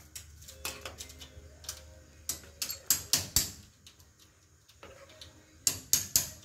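Metal ladle knocking and scraping against a black iron wok while a coconut-milk chicken curry is stirred: irregular clicks, loudest around three seconds in and again near the end.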